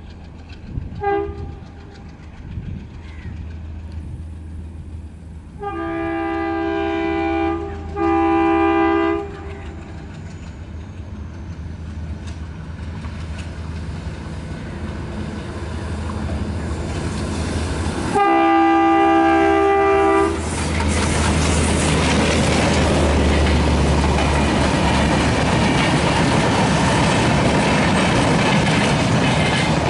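WDP3A ALCO diesel locomotive approaching with its engine chugging in a steady low hum, giving a short horn pip about a second in, two long horn blasts around six and eight seconds, and another blast near the eighteen-second mark. From about twenty seconds the train passes close, loud, with the coaches' wheels clattering over the rail joints.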